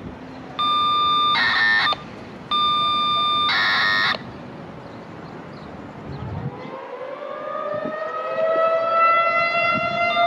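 A radio scanner sounds two bursts of paging tones, each a held tone followed by a shorter second tone. About six seconds in, a Federal Signal 2001-SRN electromechanical outdoor warning siren begins winding up for its monthly test, its pitch rising steadily as it gets louder.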